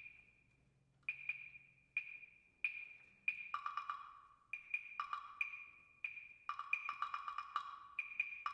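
Percussion ensemble in a quiet passage: a high-pitched wood block struck in a steady pulse, each stroke ringing briefly. About three and a half seconds in, a lower-pitched block joins with quick figures between the beats.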